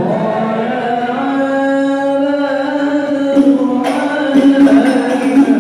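Vocal music in a chanting style: a singing voice holds long, slowly changing notes, and drum-like percussion hits come in about three and a half seconds in.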